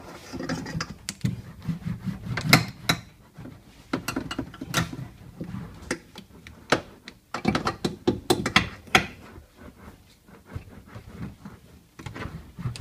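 Rolling and pressing a heated 3 mm Aero Plus damping sheet onto the sheet metal of a car's inner door panel: irregular clicks, knocks and rubbing against the metal, coming in several clusters.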